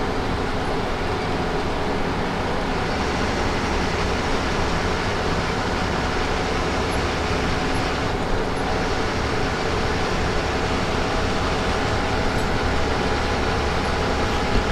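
Bus driving at speed: steady engine and road noise with a low rumble.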